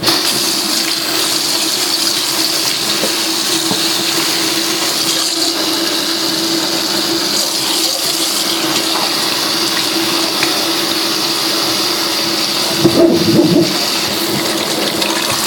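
Tap water running steadily into a sink, with a steady hum from the tap, as the sink fills with fresh water. About thirteen seconds in there is a brief louder splashing.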